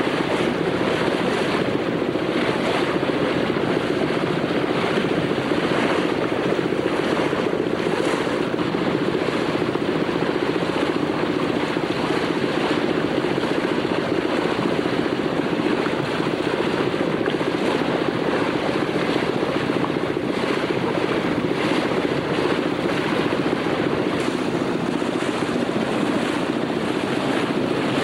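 A boat's engine running at a steady drone, with water rushing along the hull and wind on the microphone.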